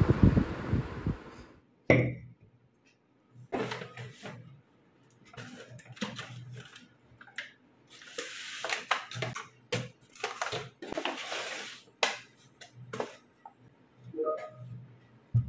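Takeaway food packaging being handled on a desk: a brown paper bag rustling, and a plastic container and cardboard pizza boxes set down with scattered clicks and knocks. For the first second and a half, a low rushing noise like wind on the microphone cuts off suddenly.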